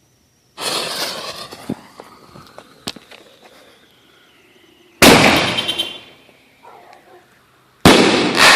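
World Class Excalibur crackle canister shells going off: three loud bangs, about half a second in, at five seconds and near the end, the last two the loudest, each trailing off into crackling.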